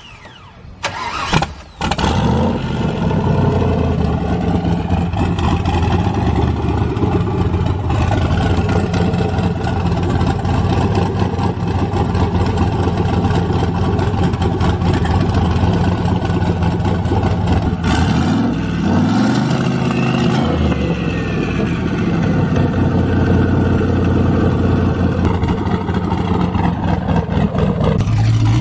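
Turbocharged V8 engine in a modified car cranking and catching about two seconds in, then idling steadily. It is briefly revved about two-thirds of the way through.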